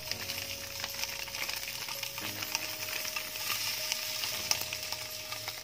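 Sei sapi (Kupang-style smoked beef) frying in hot oil in a wok: a steady sizzle with fine crackling.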